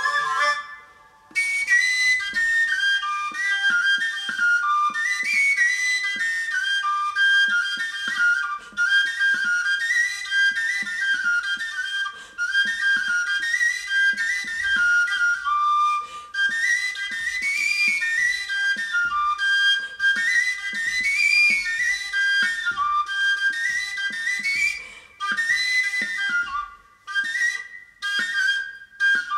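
Traditional Estonian labajalg dance tune played on a high-pitched woodwind, a quick, lively melody of short high notes. It stops briefly about a second in and several times near the end.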